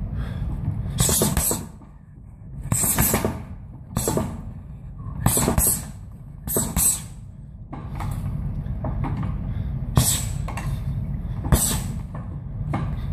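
Gloved punches landing on a round heavy bag in short flurries, about seven in all, each with the boxer's sharp exhales, over a steady low rumble.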